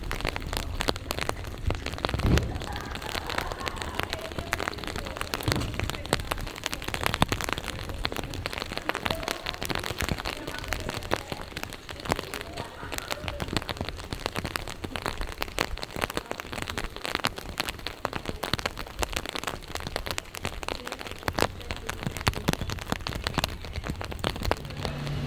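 Steady rain, with many separate drops landing in quick, irregular clicks and taps.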